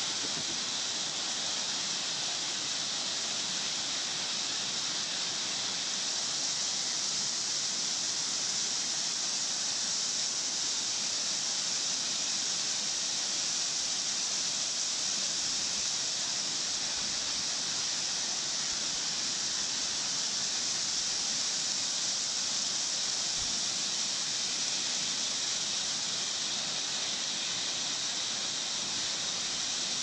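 Two-tiered waterfall pouring over rock ledges: a steady rush of falling water.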